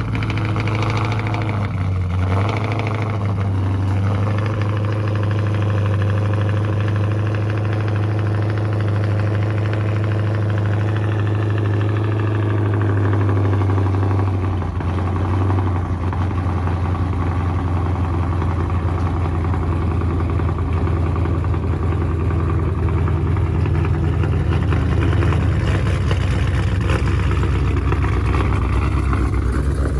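The Daytona's V8 engine running at a steady idle, with the pattern of its note changing about halfway through. This is the sound the owner fears may be rod knock or a spun bearing, though he is not sure what it is.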